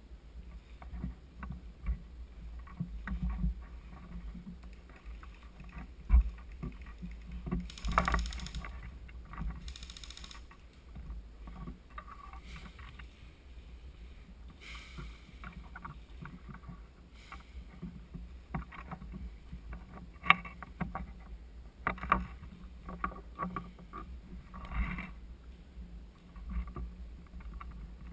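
Irregular rustling, brushing and knocking, with a constant low rumble underneath and a few louder swishing passes, several of them in the second half.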